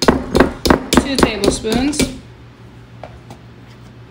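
A measuring spoon knocked repeatedly against the rim of a mixing bowl to shake butter off it: about eight quick, sharp clinks over the first two seconds.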